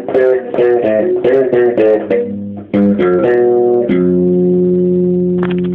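Electric bass guitar played slap style: a quick run of sharp, percussive notes, then a single low note held and left ringing from about four seconds in, with a few light clicks near the end.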